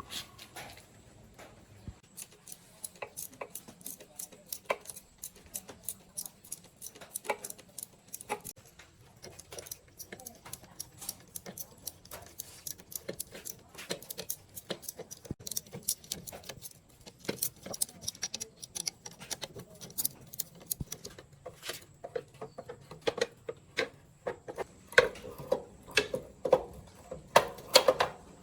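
Hand tools working on metal motorbike parts: irregular light clicks, taps and clinks, which grow busier and louder near the end with a few short ringing metal clanks.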